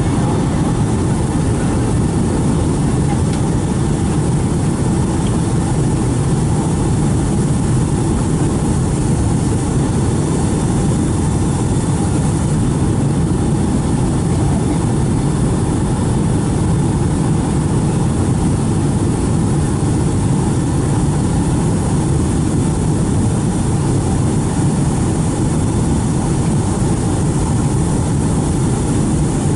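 Steady cabin roar of a Boeing 757-200 in flight: jet engine and airflow noise heard from inside the passenger cabin, even and unchanging, heaviest in the low end.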